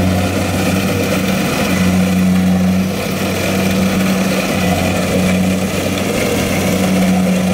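Tracked rice combine harvester running steadily as it cuts rice in a flooded field: a constant engine hum that holds one pitch throughout.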